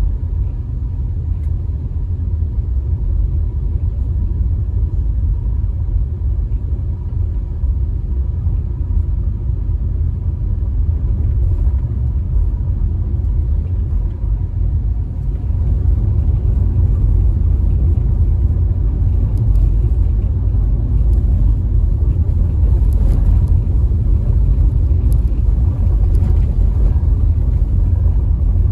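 Low, steady road and engine rumble of a car driving slowly in traffic, heard from inside the cabin. It gets a little louder about halfway through.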